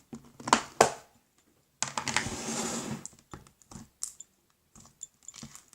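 Handling noise as the next slime is fetched: a couple of sharp clicks, about a second of rustling, then scattered small taps.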